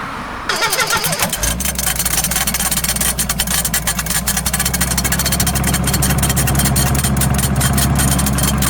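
Excavator's diesel engine starting suddenly about half a second in, then running at a steady low drone with a fast clattering over it.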